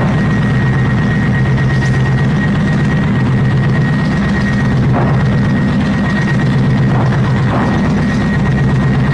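PzH 2000 self-propelled howitzer running at idle: a steady low engine drone with a constant high whine over it. A few faint knocks come in the second half, as artillery rounds are handled at the open rear hatch.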